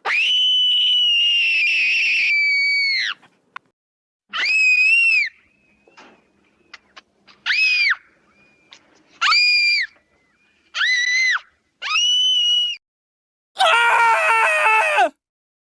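A series of screams: one long, very high-pitched scream of about three seconds, then five short high screams, and near the end a lower, rougher scream.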